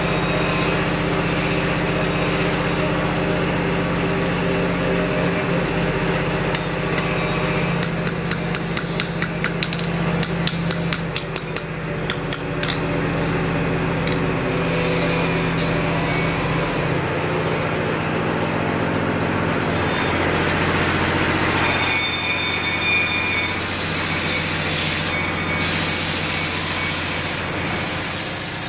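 Steady hum of a running workshop machine. About a third of the way in comes a run of quick, light hammer taps: a small hammer peening the handle pins of a knife against a steel block. In the last quarter an abrasive wheel grinds the knife's handle scales with a rasping sound.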